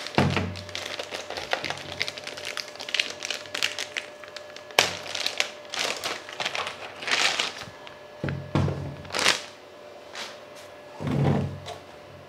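Clear plastic wrapping bag crinkling and rustling as it is pulled off a mesh Wi‑Fi router unit, with a few dull thuds as the unit is handled and set on the table.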